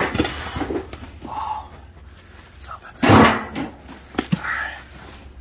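A heavy wooden box with something inside being lifted and handled, with a loud bump about three seconds in and a few lighter knocks.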